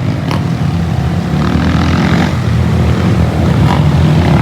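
Dirt bike engine running with a steady low rumble.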